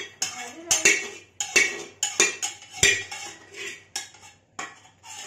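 Metal kitchen utensils clanking and scraping against a steel pan, in repeated sharp clinks about two a second.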